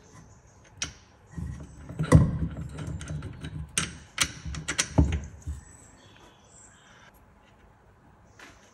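Maserati Mistral prop shaft being fitted to its rear flange by hand: a run of metal clinks, taps and knocks as the flanges are lined up and the bolts and nuts are started, busiest from about one to five and a half seconds in, then only light handling.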